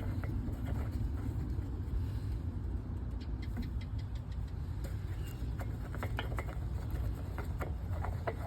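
Light clicks and taps as the dipstick is pulled and handled in the oil filler of an Onan generator, scattered through the second half, over a steady low rumble.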